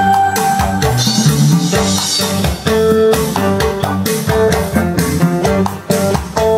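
Guitar-led music with bass and drums, played through JVC Victor SP-EXA10 wood-cone bookshelf speakers driven by a Luxman A3500 valve power amplifier.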